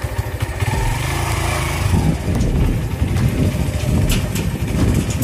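Motorcycle engine running steadily while ridden along a rough, rutted dirt track, heard from the rider's seat. Two short sharp clicks come about four seconds in.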